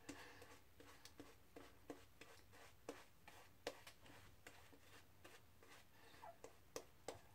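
Faint, irregular strokes of a wet badger shaving brush working lather on the face: soft scratchy ticks, each brush pass against the skin and stubble.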